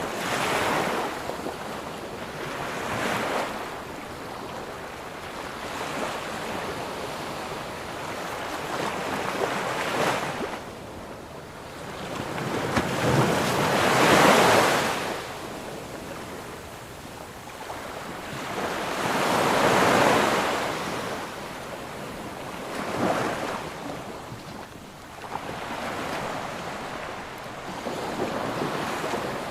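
Sea waves breaking and washing up onto a sandy beach, swelling and fading in surges every few seconds, the loudest about halfway through.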